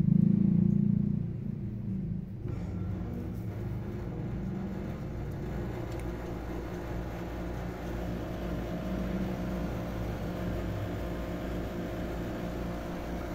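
A steady low mechanical rumble with a hum in it, like a motor running, louder for about the first second and a half.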